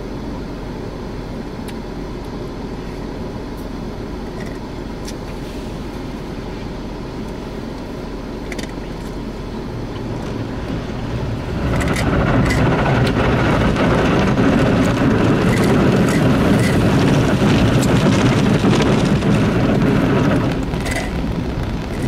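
Automatic car wash machine heard from inside the car's cabin: a steady running noise at first, then about halfway through the noise rises sharply as water spray and the rotating brushes reach the windshield and body, with scattered slaps and knocks.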